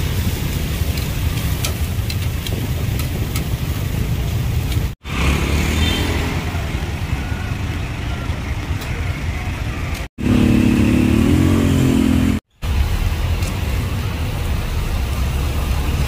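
Steady low street-traffic rumble. For about two seconds partway through, a louder engine tone rises and falls, as a motor vehicle passes. The sound cuts out briefly three times.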